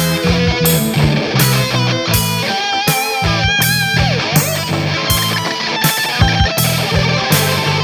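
Instrumental rock music: electric guitar playing over a bass line, with a steady beat.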